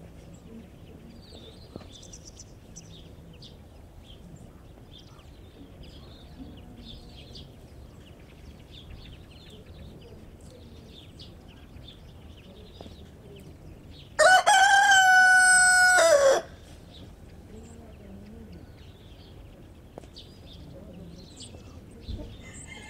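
A rooster crows once: a single cock-a-doodle-doo about two seconds long, its pitch held level and then dropping at the end, about two-thirds of the way through.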